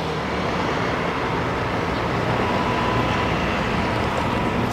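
Steady street traffic noise on a city road: an even rush with no breaks, and a faint steady tone coming in about two seconds in.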